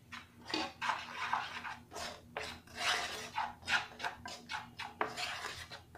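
Wooden spoon stirring dry powders (cocoa, cornflour, sugar, rice flour) in a non-stick kadhai, scraping and brushing across the pan's base in quick, uneven strokes, about two or three a second.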